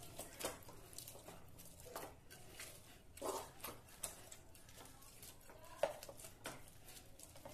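A flat steel tumbler pressing and mashing boiled potato and aubergine with onion in a pan: faint soft squishing with irregular light knocks and scrapes of the glass against the pan, about half a dozen in all.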